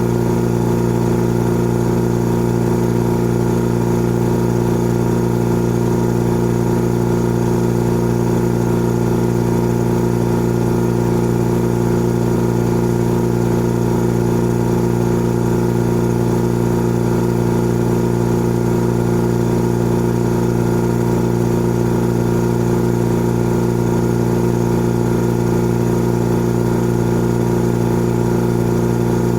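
Old air compressor running steadily, its motor and pump giving a constant mechanical hum with a strong, even drone.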